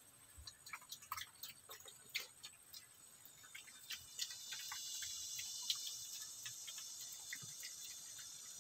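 Piglets crunching pellet feed off a concrete floor: an irregular run of small clicks. About three and a half seconds in, a steady high insect drone comes in over it and later eases off.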